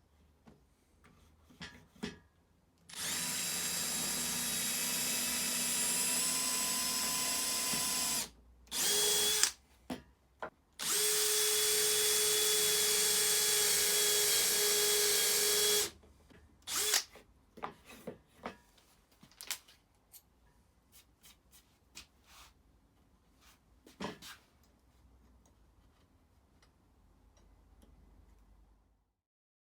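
Handheld power drill boring holes in wood. It runs steadily with a motor whine for about five seconds, gives a short burst, then runs for about five seconds more. Small clicks and knocks follow.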